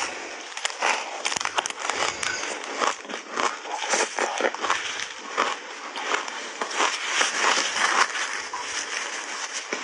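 Ice coated in matcha milk powder being bitten and chewed close to the microphone: a dense, continuous run of crunching and crackling as the ice breaks up.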